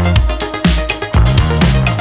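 Background electronic dance music with a steady four-on-the-floor beat and a pulsing bass line.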